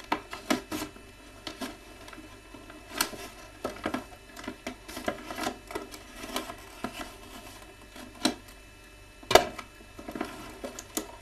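An action-figure package being cut open with a knife and handled: irregular clicks, knocks and scrapes, with one sharp knock about nine seconds in.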